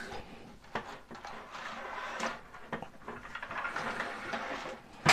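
Plastic building-brick bridge model sliding and scraping as it is pulled out from its launcher vehicle, with a few light plastic clicks and a sharper knock at the very end.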